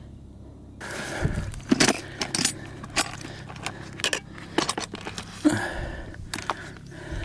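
Grey plastic ammo-can summit register box being handled and opened: a run of sharp clicks, knocks and rattles as the latch and lid are worked and the contents shift, starting about a second in.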